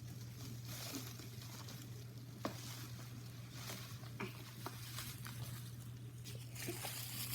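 Bubble wrap being handled, rustling and crinkling faintly in scattered light clicks, over a low steady hum.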